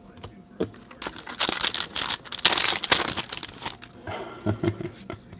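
Foil wrapper of a trading-card pack being torn open and crumpled by hand: a crinkling, tearing rustle lasting about three seconds.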